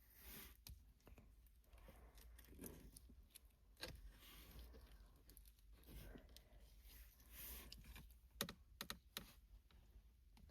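Faint handling noises as cleaning gel is pressed into and pulled from a car's gear-shift console: soft rustles and small clicks, with a few sharper clicks near the end.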